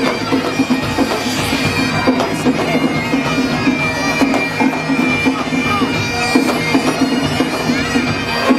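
Bagpipes playing, a steady drone held under the melody.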